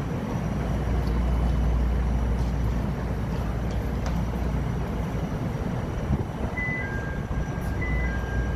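A Bombardier 5000-series CTA 'L' car standing at the platform with a steady low hum. About six and a half seconds in, a repeating two-tone high-low chime starts: the door-closing warning before departure.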